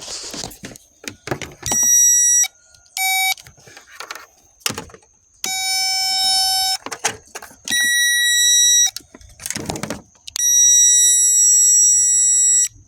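Battery tester beeping a series of five steady electronic tones while the battery is checked: three at a high pitch and two at a lower pitch, with the last one the longest at about two seconds. Clicks and handling knocks fall between the beeps.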